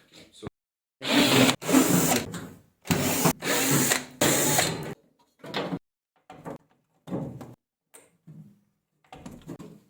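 Power drill run in five short bursts of half a second to a second each, followed by fainter knocks and rattles.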